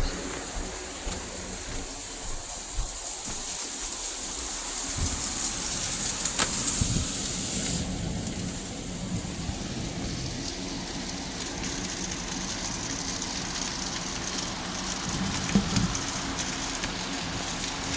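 Steady rain falling and pattering on surfaces, the trailing rain at the back of a passing thunderstorm. It swells heavier about six to eight seconds in, then eases slightly, with a few sharp drips or taps.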